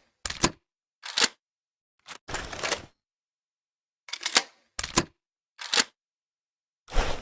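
Double-barrel shotgun being handled between shots: about eight sharp mechanical clicks and clacks at uneven intervals, with a short rattle about two and a half seconds in. This is the sound of the action being broken open, the shells handled and the gun closed again.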